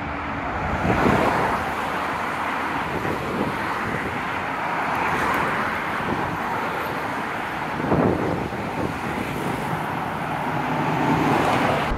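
Traffic on a multi-lane city street: a steady wash of cars driving past, with louder passes about a second in and around eight seconds.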